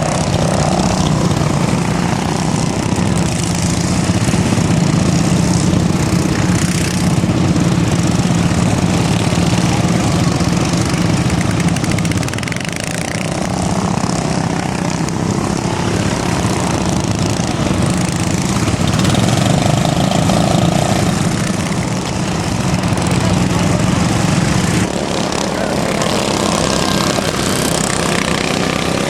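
Racing lawnmower engines running loud and steady. The level dips briefly twice, about twelve seconds in and again near the end.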